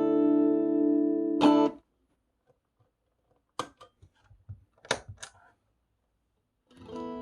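Electric guitar played through a Keeley compressor and a boost pedal: a strummed chord rings out sustained and is cut off just under two seconds in. A few sharp clicks of string and pick noise follow in the silence, then a new chord rings in near the end, quieter.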